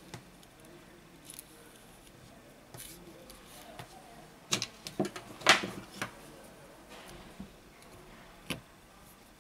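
Small clicks and taps of a phone being handled during reassembly, with a cluster of sharper knocks about halfway through and one more click near the end as the battery is set into the housing.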